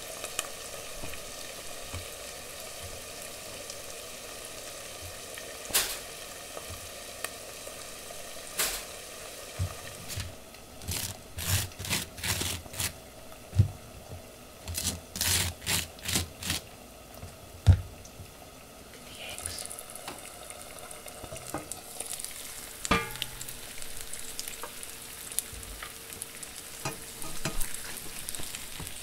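Eggs frying in a pan with a steady sizzle. In the middle comes a run of quick scraping strokes, a knife spreading butter on toast, and later the sizzle grows brighter and louder.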